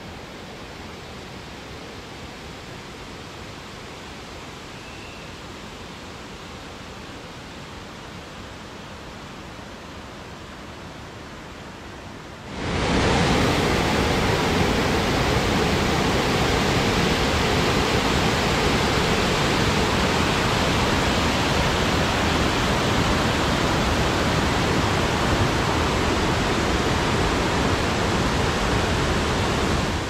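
Steady rush of a waterfall, jumping much louder and fuller about twelve and a half seconds in.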